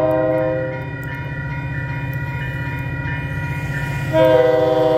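MBTA commuter diesel locomotive's air horn blowing as the train nears a grade crossing: one blast ends a little under a second in, and after a pause filled by the low rumble of the approaching train, a second louder blast starts just after four seconds in.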